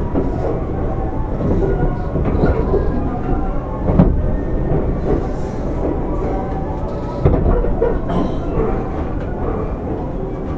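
Railway station platform sound beside a standing 205-series electric train: a steady low rumble, with a sharp knock about four seconds in and another thump a little after seven seconds.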